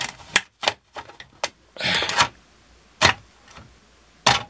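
Plastic RC buggy body shell being handled and set down onto the chassis: a string of short, sharp clicks and knocks, with a brief scrape about two seconds in.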